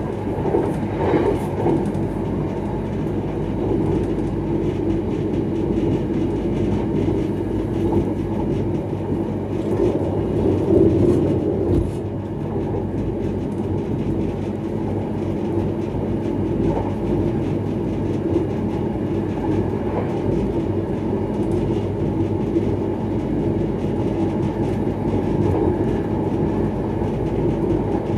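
X31 electric multiple-unit train running at speed, a steady rolling noise of wheels on rails, with louder swells about a second in and again around ten to eleven seconds in.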